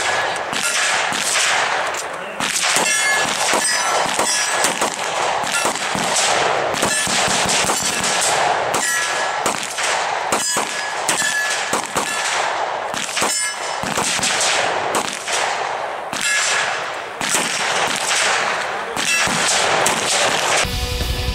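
Hi-Point .45 ACP pistol firing a long, steady string of shots, about one to two a second, with steel targets clanging after hits. Music comes in near the end.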